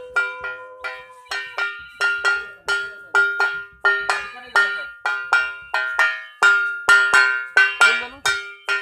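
Metal hand bell rung over and over, about three ringing strokes a second, as in puja bell-ringing. A steady held tone underneath fades out about a second and a half in.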